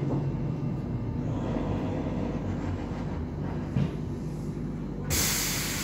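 MF 77 metro train running slowly along a station platform, a steady low rumble of wheels and running gear with a faint click. About five seconds in, a sudden loud hiss of air starts and holds, as the train comes to its stop.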